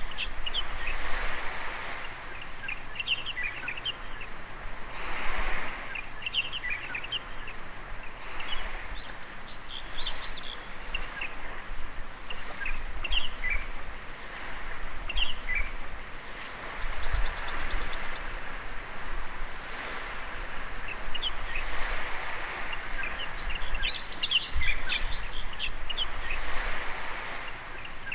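Small birds chirping and calling over and over, with waves washing onto a beach that swell up every few seconds.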